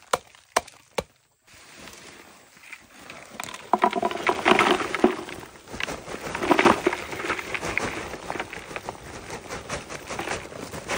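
A few quick knife chops into a crumbly termite nest, then the rustle of a woven plastic sack and loose earth pattering as it pours into a plastic bucket.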